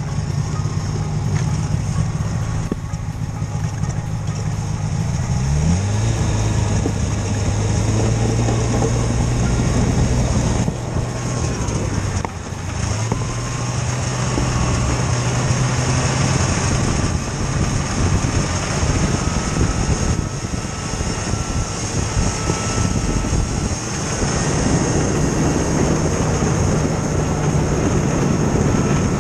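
Snowmobile engine running while riding over lake ice. It revs up about six seconds in, then holds at a steady pitch, easing off briefly twice around the middle.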